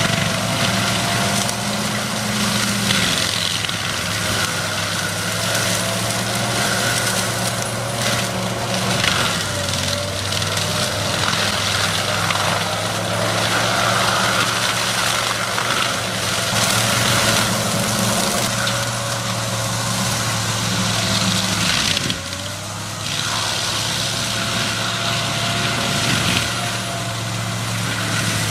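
Excavator engine running steadily under load, with a rough grinding noise of wood being worked over it; the noise drops briefly about 22 seconds in.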